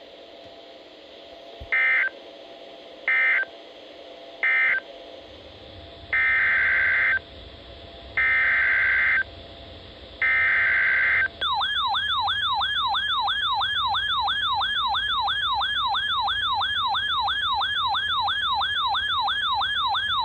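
Emergency Alert System broadcast tones. Three short, harsh SAME data bursts, typical of the end-of-message code, are followed by three longer SAME header data bursts. A little past halfway a loud warbling siren-like attention tone starts, wailing up and down about three times a second.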